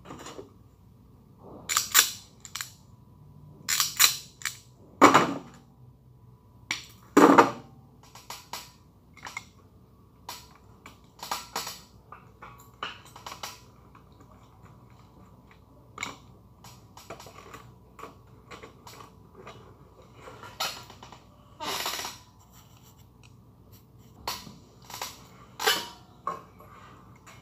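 Irregular sharp clicks and snaps of hand work on the wiring and terminal blocks of an elevator control panel. The loudest snaps fall in the first eight seconds and again near the end.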